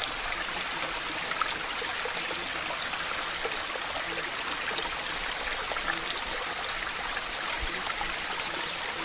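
Steady rain sound: an even hiss of falling water sprinkled with many tiny ticks, the ambient track of a subliminal recording.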